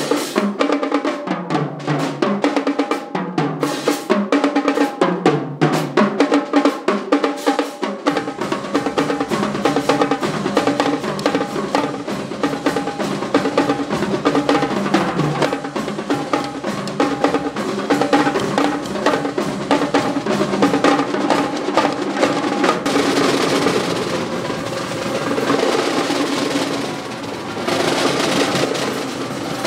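Marching drumline playing a fast cadence on Pearl marching tenor drums and snare drums, with rapid pitched tenor-drum strokes over snare work. A deeper low end comes in about eight seconds in, and near the end the strokes blur into a rapid snare roll.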